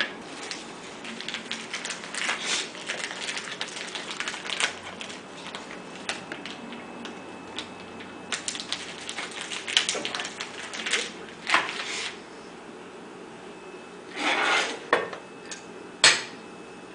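Dishes and utensils clinking and knocking on a kitchen counter as things are handled, in scattered irregular clicks, with a sharp knock about sixteen seconds in.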